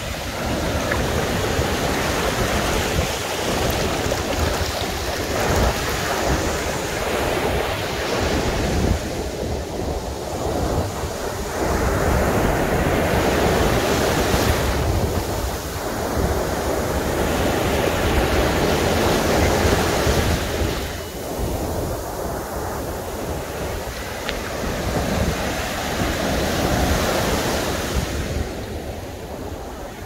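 Ocean surf washing up a sandy beach: a broad rush of breaking waves and foam that swells and eases several times.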